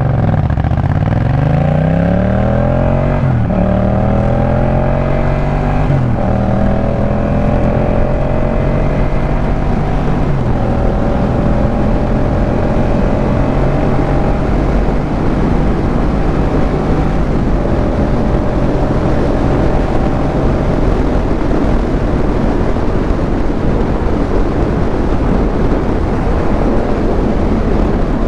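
Yamaha MT-07's 689 cc parallel-twin through a Jeskap K4 full aftermarket exhaust, accelerating up through the gears: the pitch climbs and drops back at each upshift, three times in the first ten seconds or so. It then runs at a steadier speed for the rest of the time, with a rushing noise under the engine note.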